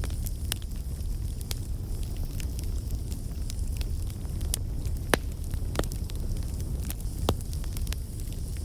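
Wood campfire burning: a steady low rumble of flames with irregular sharp crackles and pops from the burning wood, a few louder snaps among them.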